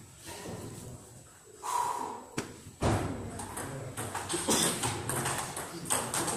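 Table tennis rally: the ball clicking sharply off the bats and the table in quick, uneven succession, starting about three seconds in.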